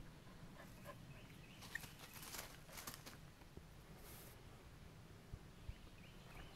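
Near silence, with a few faint rustles and scuffs about two to three seconds in and again about four seconds in.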